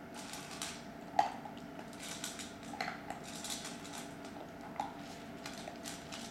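Weimaraner puppy eating dry food from a stainless steel bowl: irregular crunching and rattling of the food, with the metal bowl clinking and ringing briefly a few times, the loudest clink about a second in.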